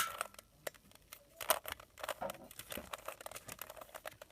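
Plastic Rubik's cube being turned by hand: a run of quick, irregular clicks and rattles as its layers are twisted, the sharpest right at the start.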